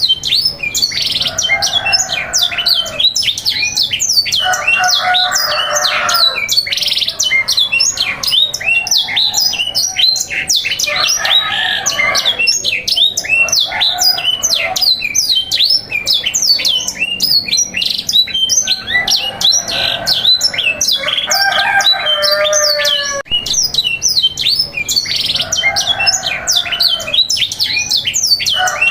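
Canaries singing: a dense, fast run of high chirps and trills without pause, with lower warbling phrases coming in every two to three seconds.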